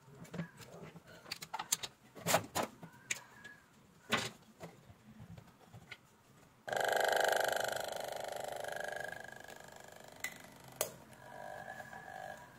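A few handling clicks and knocks from the tubing and pump, then, about halfway through, an RS-081 electromagnetic aquarium air pump switches on with an abrupt, steady buzz. It is loudest for the first couple of seconds, then quieter. The pump runs but pushes no air, because its rubber diaphragm has come loose.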